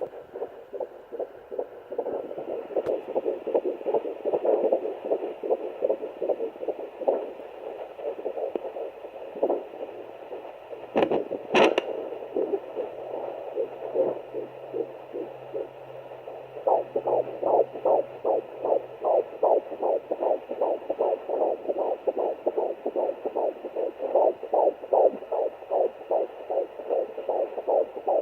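Sonoline handheld fetal doppler picking up a fetal heartbeat at 14 weeks' gestation: a fast pulsing at about two to three beats a second, uneven at first, then settling into a clear, regular rhythm a little past halfway. Two sharp knocks just before the middle.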